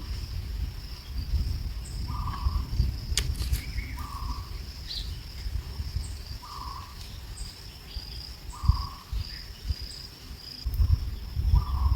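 Outdoor insect drone, a steady high-pitched trill, with a short lower call repeating about every two seconds and a few sharp clicks. A low rumble underneath grows louder near the end.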